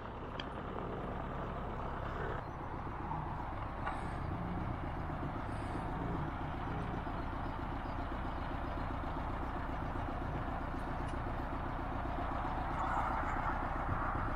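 An engine idling steadily with an even low rumble, with a couple of faint clicks early on.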